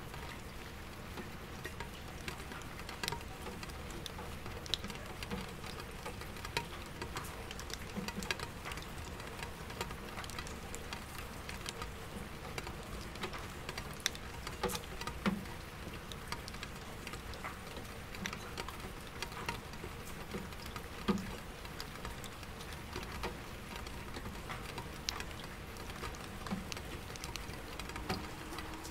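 Soft rain pattering on window glass and an empty bucket: many small, scattered drop ticks, with now and then a deeper drop knocking on the bucket, over a steady low hum of distant city traffic.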